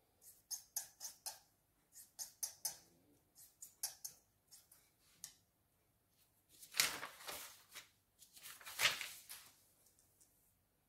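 Black felt-tip pen drawing quick short strokes on paper, several scratches a second. Then two louder swishes of paper sheets being moved, about seven and nine seconds in.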